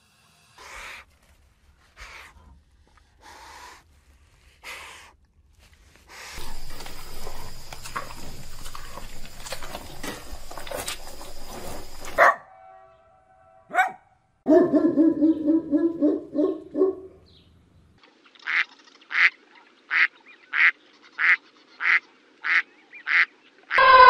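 A run of different animal calls in separate clips: four short calls, a stretch of dense noisy sound, low pitched calls, then a regular series of about nine short calls at roughly two a second.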